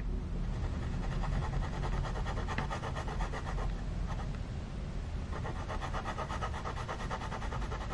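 Fountain pen nib scratching steadily on notebook paper in many quick short strokes, filling in an ink swatch.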